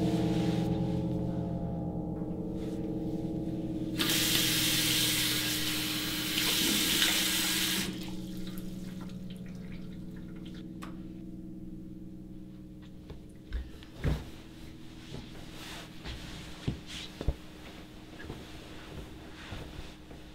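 A bathroom tap running into a sink for about four seconds, over a low sustained musical drone. A few soft knocks follow later.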